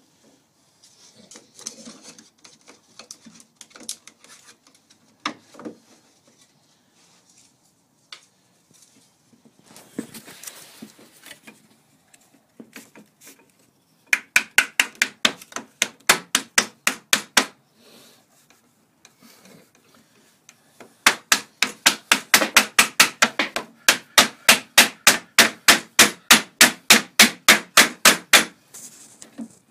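Rapid hammer taps on wood, about four a second, while the steamed ash canoe stem is secured in its bending form. There is a short run about 14 seconds in and a longer one from about 21 seconds until near the end, after several seconds of scattered soft knocks and handling.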